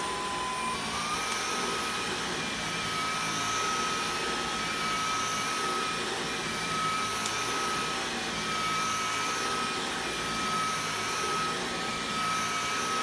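Dyson V11 Torque Drive cordless stick vacuum running with its Torque Drive brush head fitted: a steady high whine over an airy rush, the whine stepping up slightly in pitch about a second in. It is the test run of the repaired head, with its broken ring removed, and the fix works.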